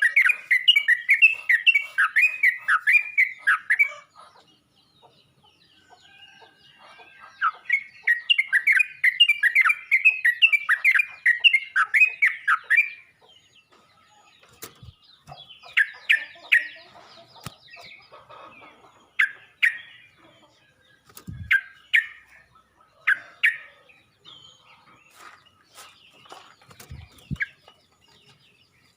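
Yellow-vented bulbul singing: two long runs of quick, bubbling notes, each several seconds long, followed by scattered short chirping phrases, with a few sharp clicks in between.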